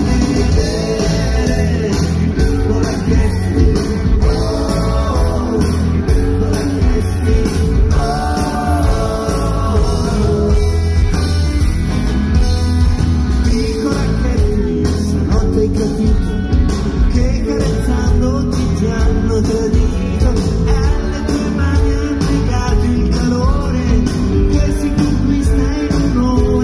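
Live rock band playing a song: a lead vocal over electric guitar, bass guitar and drums, amplified through a stage sound system.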